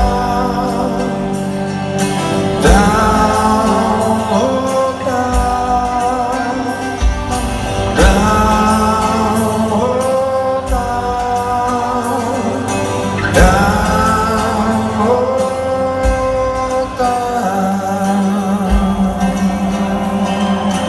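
Live rock band playing: a lead singer's long held sung phrases over electric guitars, bass and drums, heard from the audience in a large arena.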